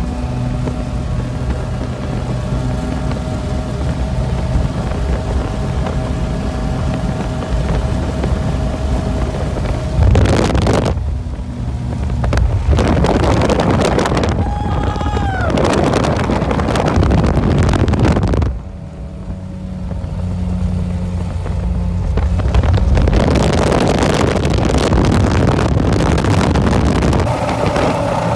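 Twin Mercury 2.5-litre 280 V6 two-stroke outboards running hard at high speed, a steady engine drone. From about ten seconds in, heavy wind noise on the microphone swells over it several times, for seconds at a stretch.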